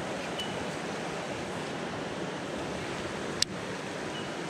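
Steady rush of flowing creek water, with one sharp click about three and a half seconds in.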